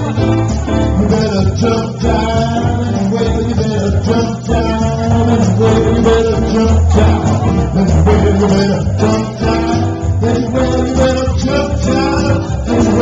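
Loud, continuous music with a singer.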